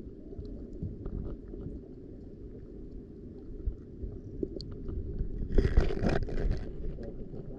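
Underwater sound picked up through a camera in shallow, surging sea water: a steady low rumble of moving water with scattered faint clicks, and a louder rush of water for about a second near the end.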